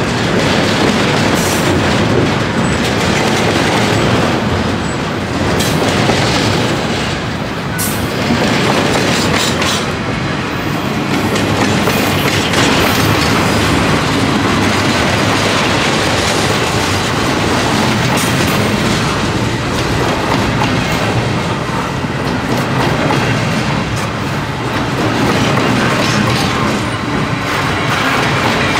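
Double-stack container cars of a CSX intermodal freight train rolling past: a steady rumble and rattle of steel wheels on rail, with repeated clicks as the wheels cross rail joints.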